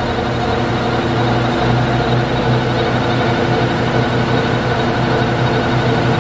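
Littleford M-5 stainless steel plow mixer running, its 3 hp motor turning four plows on the shaft: a steady, even hum with a strong low tone that does not change.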